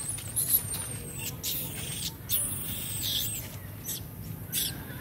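A baby monkey's high-pitched squeaking calls: a string of short squeaks and chirps, one sliding down in pitch near the middle.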